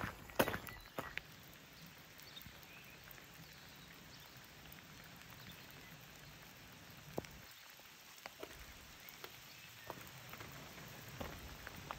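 Footsteps of a walker on a path: a few sharp steps in the first second or so, then only scattered faint taps over a steady outdoor hiss.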